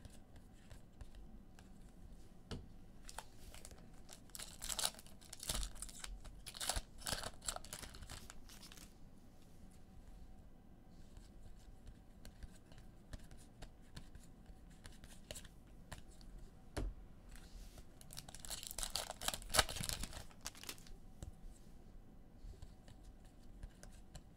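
Trading card pack wrappers being torn open and crinkled, in two spells of tearing and crackling, with small clicks of cards being handled in between.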